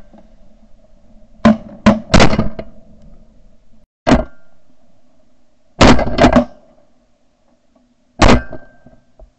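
Shotgun shots, very loud, going off in quick bursts: three close together about a second and a half in, one near four seconds, two or three around six seconds, and one just after eight seconds.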